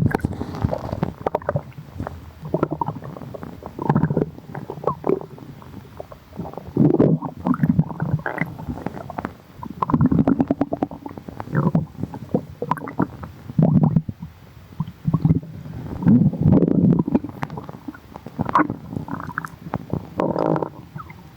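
Human stomach growling in a string of irregular bouts, one after another with short lulls between.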